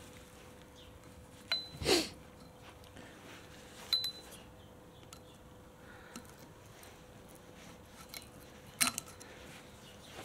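Screwdriver and wire retaining clip clinking against a Suzuki DR650 fork leg as the dust seal clip is prised out of its groove: a few sharp metallic clicks, the loudest about two seconds in, one near four seconds with a brief ring, and a pair near the end.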